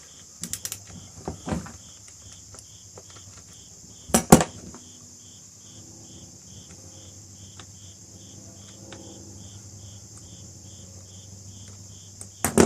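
Sharp metal clicks and clacks from a tool working on a chainsaw's bar nuts and chain tensioner while the chain is tightened, the loudest a double clack about four seconds in. Insects trill steadily behind, with a chirp pulsing about three times a second.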